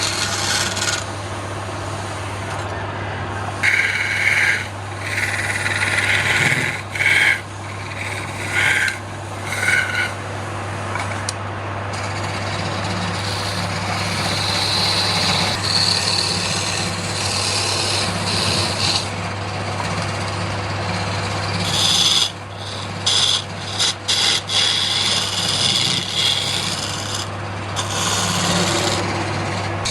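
Wood lathe running with a steady hum while a turning tool cuts into the spinning wood, giving a rasping scrape that comes and goes in repeated passes and breaks off briefly several times.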